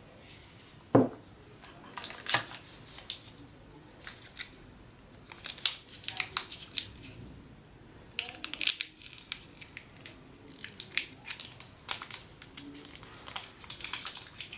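Plastic packaging crinkling and rustling as a smartphone's boxed accessories are handled, in irregular clusters of sharp crackles, with a single knock about a second in.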